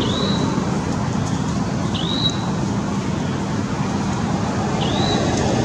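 Steady rushing background noise, with a short high whistle that rises and levels off three times, about every two and a half seconds.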